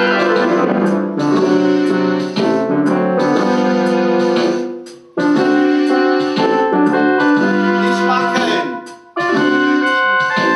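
Keyboard playing sustained chords with a piano-like sound. The music fades out briefly twice, about five and nine seconds in, and comes back abruptly each time.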